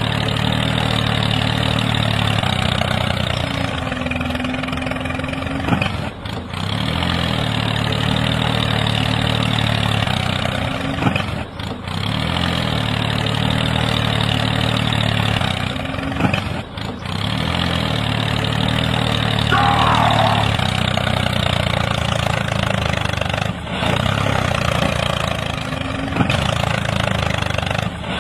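Steady engine drone for a small tractor at work, dipping briefly every five or six seconds. A short high chirp comes a little past the middle.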